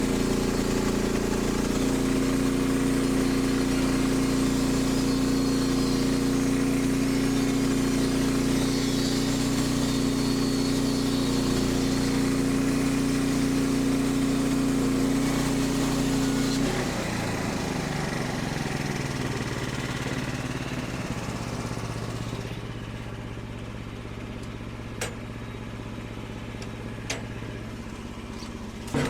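Frontier portable band sawmill's engine running steadily at high throttle, then throttled back about seventeen seconds in, its pitch falling to a lower idle. Two light clicks come near the end.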